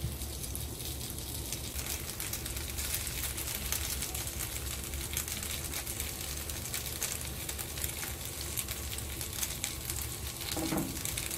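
Black cod steaks sizzling and crackling as they pan-fry on an oiled grill pan, the crackle growing busier after about two seconds as more steaks go in, over a steady low hum.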